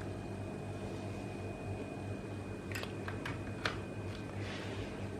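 Steady low electrical hum with a faint high whine, and a few light clicks about three seconds in.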